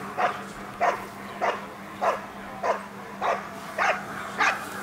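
A dog barking steadily at a motionless protection helper, the guard-and-bark (hold and bark) of a protection trial: about eight sharp barks in an even rhythm, roughly one every 0.6 seconds.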